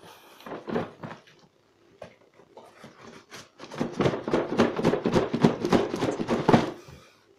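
Packing tape and clear plastic wrapping being cut and torn off a cardboard carton. There is a short rip about a second in, then about three seconds of loud, dense crackling as the plastic is ripped and crumpled.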